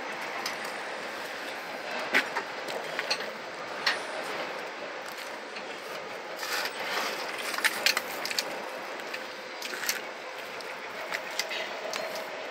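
Playing cards being pulled one at a time from between a tyre and a painted steel wheel rim, masking coming off after spray-painting, each card freeing with a short light click or flick, scattered every second or two over a steady background hiss.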